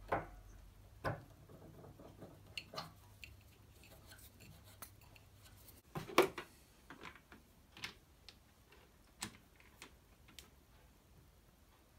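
Scattered light metallic clicks and knocks of a timing pulley being handled: first worked at a motor shaft it is too tight to slide onto, then set into the chuck of a Drummond B-Type lathe. The loudest knock comes about six seconds in.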